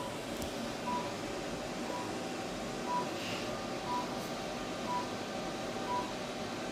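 Therapy laser unit beeping: a short single-pitch beep about once a second while the laser is emitting, over a steady background hum.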